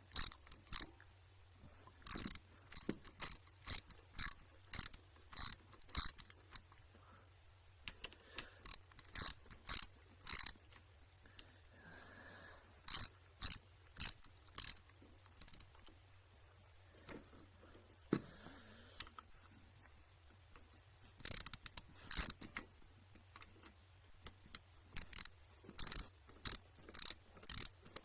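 Ratchet wrench clicking in short runs of strokes, with pauses between, as bolts are turned.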